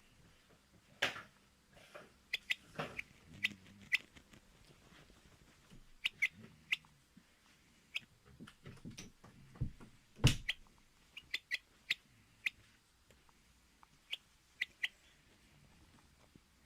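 A contented hen making short, scattered chirps and soft clucks, with a few soft knocks among them, the loudest about ten seconds in.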